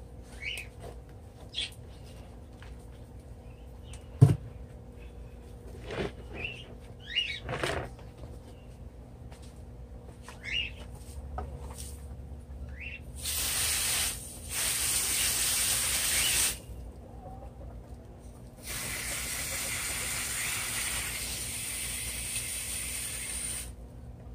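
Water being sprayed over freshly repotted pothos plants in two long, steady spells, about 13 seconds in and again about 19 seconds in. Before that come a few short bird-like chirps and a single sharp knock about 4 seconds in.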